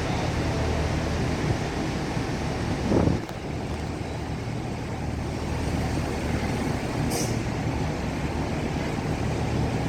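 A ship's engine running steadily with a low rumble. There is a brief louder swell about three seconds in and a short high hiss about seven seconds in.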